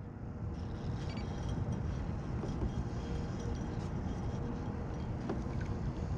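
Steady low rumble of wind on the camera microphone, with a few faint clicks.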